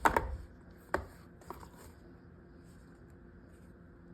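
A leather championship belt being handled and turned: a few light knocks and rustles in the first two seconds, then quiet room tone.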